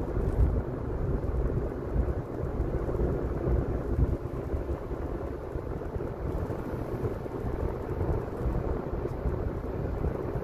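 Inside a moving car's cabin: a steady low rumble of tyres on the road and the engine at cruising speed.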